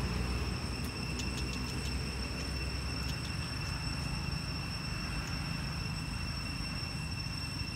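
Steady outdoor background: a constant high-pitched whine over a low rumble, with a few faint clicks and no monkey calls standing out.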